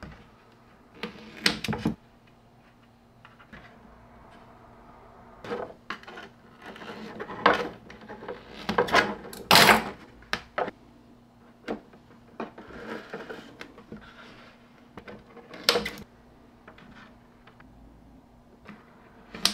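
Hands working clear double-sided nano tape onto 3D-printed PLA enclosure parts: scattered clicks, taps and crinkles of tape and plastic, a second or more apart.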